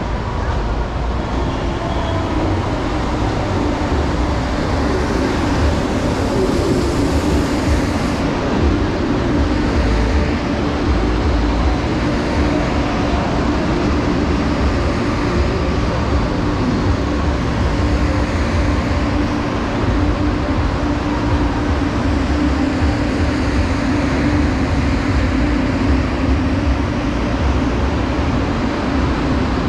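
CPTM electric commuter train running through the station: steady rumble of wheels on rails under a constant hum, with some gliding tones in the first several seconds.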